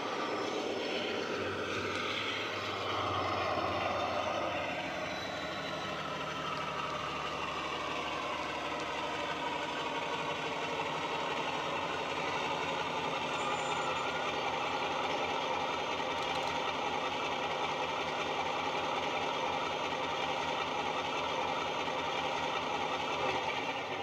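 Model-railway DCC sound of a Class 52 'Western' diesel-hydraulic: its twin Maybach engines reproduced by a LokSound 5 decoder with an SWD sound file through an EM2 speaker. The engine note falls over the first few seconds, then runs on steadily.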